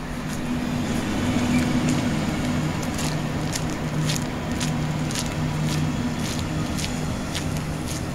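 Passenger coaches of a night train rolling slowly past a station platform, with a steady low hum. From about three seconds in there is also a regular light ticking, about two ticks a second.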